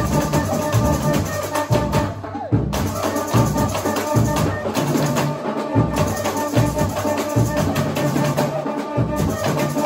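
Samba school bateria playing live samba: surdo bass drums with repinique and snare drums in a fast, steady beat, and a held melody line over the drums.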